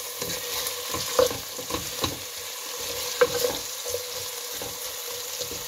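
Diced potatoes sizzling in hot oil in a pan while a wooden spatula stirs them, with irregular knocks and scrapes of the spatula against the pan, the loudest about one and three seconds in.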